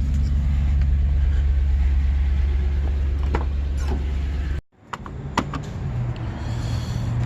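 A car's engine and road noise while driving, a steady low drone. A little past halfway it drops out abruptly for a moment and returns as a steadier low hum with a few faint clicks.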